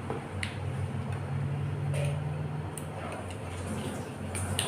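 A few light clicks of metal spoons against small glass bowls as ice cream is scooped and eaten, over a steady low hum.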